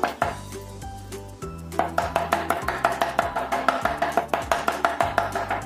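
Meat cleaver chopping raw chicken into mince on a wooden chopping board: rapid, even strikes that thin out briefly near the start and then run fast again, over background music.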